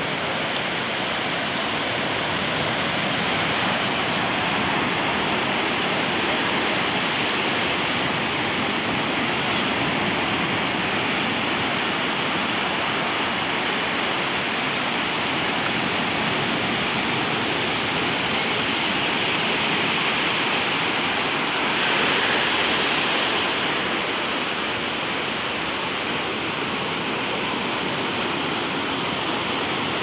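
Small sea waves breaking and washing in over a shallow shore, a steady rushing hiss that swells a little about two-thirds of the way through.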